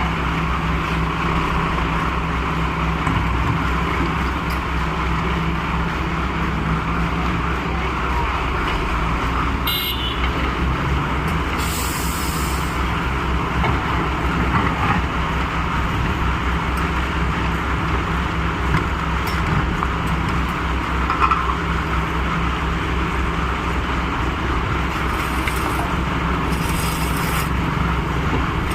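Kobelco SK140 excavator's diesel engine running steadily under work, with a constant mechanical whine over the engine's low drone. Short hisses break in about twelve seconds in and again near the end.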